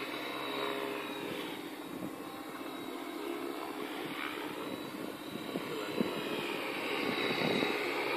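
Align T-Rex 550E electric RC helicopter in flight: a continuous motor and rotor whine whose pitch dips and rises as it flies past, a little louder near the end.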